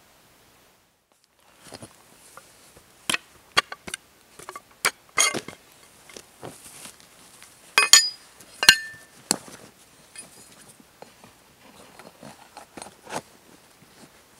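Hands handling camp gear and packing a canvas rucksack: a string of sharp metal clicks and clinks over rustling fabric, with the two loudest clinks just past the middle.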